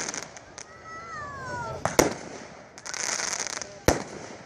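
Aerial fireworks going off: two sharp bangs about two seconds apart, the second near the end. A falling whistle comes just before the first bang, and a crackling hiss follows it.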